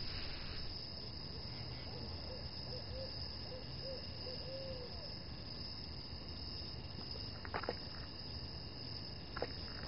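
Quiet steady hiss of ambience with a few faint warbling notes in the middle, then footsteps starting near the end.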